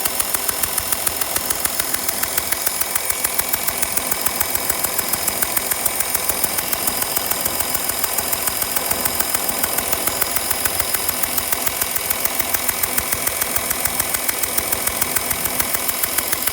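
Porsche Cayenne 3.0 V6 diesel engine idling with a fast, even ticking, several ticks a second. The owner suspects an exhaust leak.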